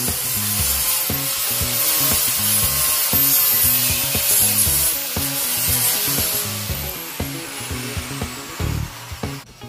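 DeWalt angle grinder grinding the steel frame and welds of a deer-stand seat, a loud, dense hiss over the motor's high whine. A little past halfway the grinder is switched off and its whine falls steadily as it spins down. Background music with a steady bass beat plays underneath.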